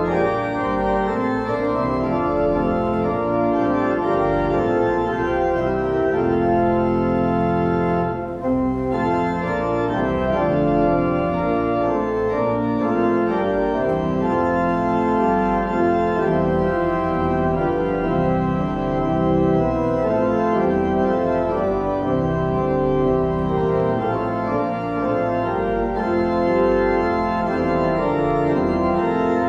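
Church organ playing a hymn in full, held chords that move from one chord to the next.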